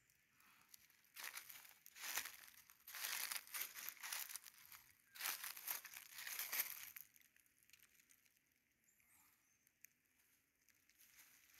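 Dry fallen leaves crunching and rustling underfoot, in a run of crackly bursts from about a second in until about seven seconds in.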